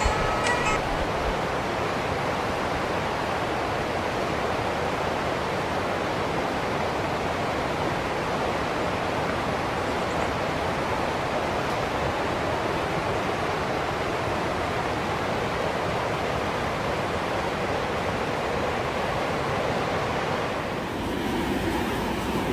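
Steady rain, an even rushing hiss of falling water; the texture shifts with a brief dip near the end.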